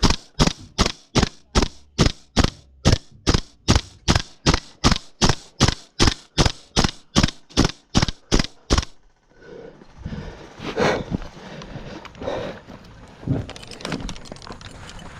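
Airsoft gun firing single shots in a steady string, about three sharp cracks a second for roughly nine seconds, then stopping. A few softer knocks and rustling follow.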